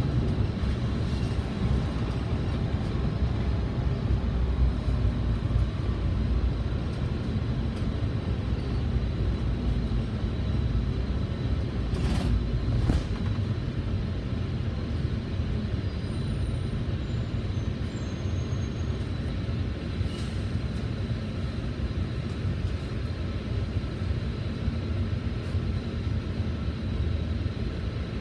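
Cabin rumble of a Volvo B9TL double-decker bus, its nine-litre six-cylinder diesel running as it drives along and then slows to a stop at a junction, the rumble easing off in the second half. A couple of sharp clicks come about halfway through.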